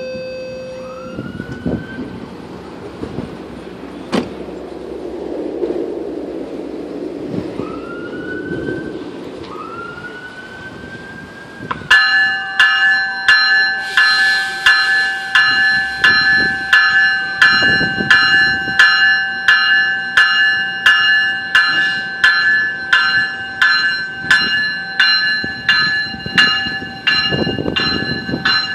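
Locomotive-style bell on an arriving GO Transit train, starting suddenly about twelve seconds in and ringing evenly at about one and a half strokes a second as the train rolls along the platform. Before it, a few rising whines and one sharp click.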